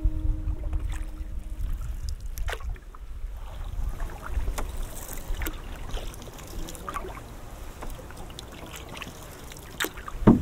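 Canoe paddling on a lake: paddle strokes in the water with splashes and drips over a steady low rumble, and a sharp knock near the end. The last held notes of background music fade out in the first second or two.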